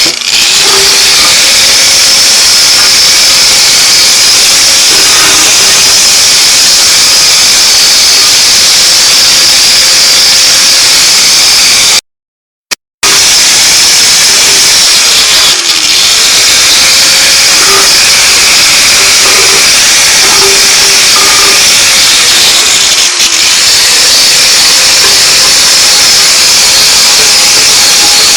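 Power grinder running steadily against the cast-iron engine block, scouring off rust, with a faint whine that wavers as the load changes. The noise cuts out for about a second near the middle.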